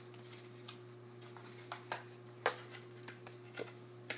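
About five light clicks and taps of plastic being handled, the sharpest about halfway through, over a faint steady hum.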